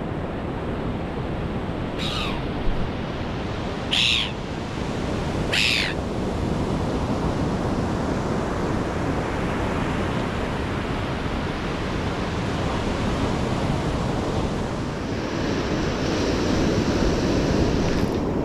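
Surf washing onto a beach, a steady rushing noise, with a bird giving three short falling calls in the first six seconds.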